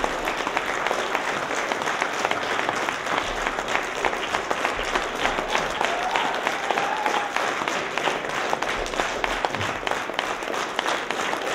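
Theatre audience applauding: dense, steady clapping from a full house. A faint voice calls out above it about halfway through.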